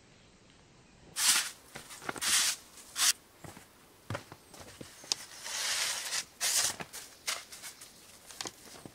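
Footsteps crunching in snow, irregular steps starting about a second in.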